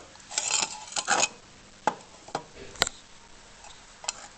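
Parts and tools being handled during engine-oil-pan work: a couple of short scrapes about half a second and a second in, then a few sharp clicks and knocks spread through the rest.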